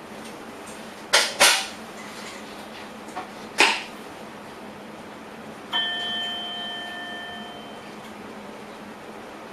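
Inside a train driver's cab: a steady running hum, three short hissing bursts in the first four seconds, then a single chime that rings out and fades over about two seconds.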